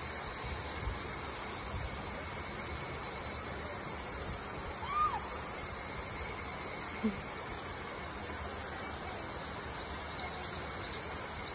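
Steady outdoor forest ambience: a continuous rushing hiss like flowing water, with a high, pulsing insect drone above it. A faint short call rises and falls about five seconds in, and a small brief sound comes near seven seconds.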